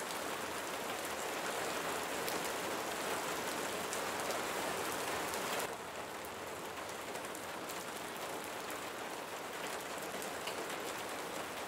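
Steady rain falling, an even hiss with no distinct drops or thunder; a little over halfway through it shifts to a slightly quieter, softer rain.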